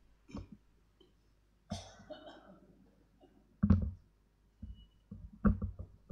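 A person coughing several times, in short separate coughs, the loudest two a little past halfway and near the end.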